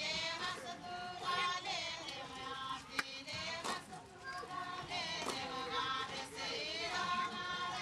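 Group of women singing together in a traditional dance song, voices rising and falling in short phrases, with one sharp knock about three seconds in.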